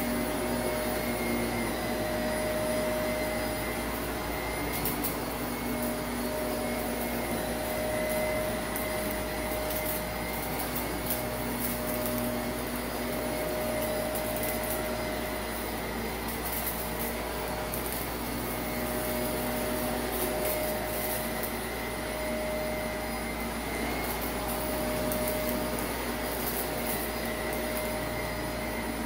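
Shark Navigator upright vacuum running steadily on a shag rug, its motor whine swelling gently as it is pushed back and forth, with scattered light crackles of grit being sucked up.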